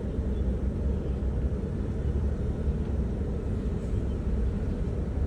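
Steady low rumble of a car driving slowly: engine and tyre noise.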